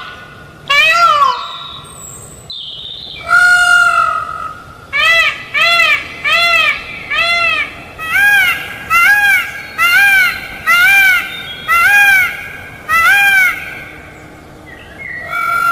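Peafowl calling loudly: a short call and a longer drawn-out call, then a quick run of about a dozen short, arching calls, roughly one a second, with another long call starting near the end.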